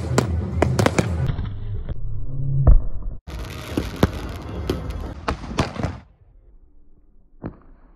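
Fireworks going off: a ground fountain spraying with dense crackling and sharp bangs, then, after a sudden break about three seconds in, aerial shells bursting with more crackling. It drops much quieter about six seconds in, with two single pops near the end.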